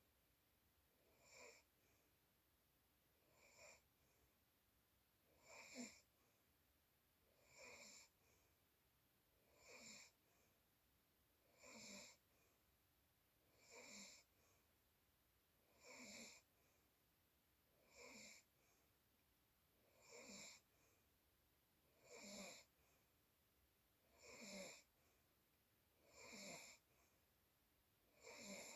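Faint, regular snoring: a short snore about every two seconds, fourteen or so in a row, with quiet in between.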